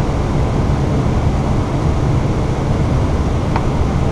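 Steady flight-deck noise inside an Airbus A320 on short final: a deep, even rumble of airflow, engines and air conditioning, with a hiss above it.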